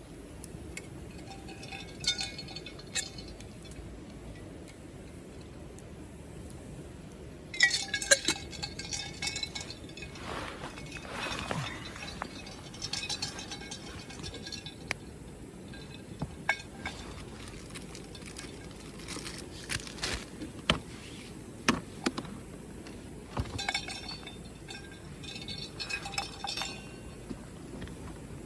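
Intermittent clinking and clattering of hard gear being handled, in several short clusters of sharp clicks with brief ringing tones. The loudest cluster comes about eight seconds in.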